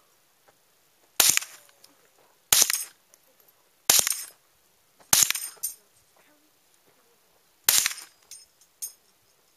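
Marlin Papoose .22 LR semi-automatic rifle firing five single shots, about one every second and a half, with a longer pause before the fifth.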